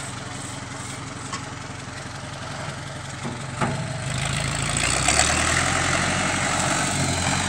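Farm tractor's engine idling steadily, with a single knock about three and a half seconds in; the engine sound grows louder and deeper from about four seconds in.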